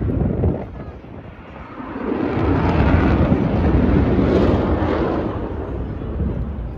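Aircraft engine noise that dips, then swells about two seconds in and slowly fades, as a plane passes, with wind on the microphone.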